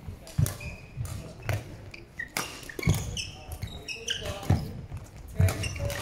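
Badminton rally on a wooden court: players' feet thudding and shoes squeaking as they lunge and recover, with sharp clicks of rackets striking the shuttlecock every second or so.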